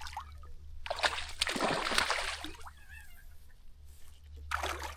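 Water splashing as a hooked bass thrashes at the surface while being landed: one long splash of about a second and a half, then a shorter one near the end.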